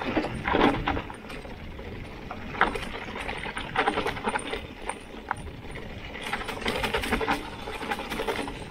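Mountain bike rattling over a rough dirt and gravel descent: tyres crunching, with scattered clicks and knocks from the bike over a steady low rumble.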